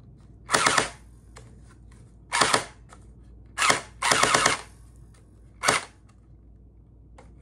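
Electric MP5 gel blaster dry-firing five short full-auto bursts with no gel balls loaded, its motor and gearbox whirring for a fraction of a second each time. It fires only in full-auto, even with the selector set to semi.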